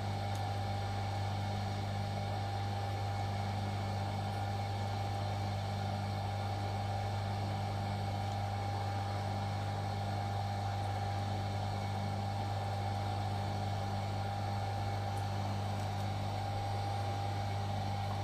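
Steady low hum with a thin, steady higher tone over a faint hiss, unchanging throughout; the desoldering work itself is not heard.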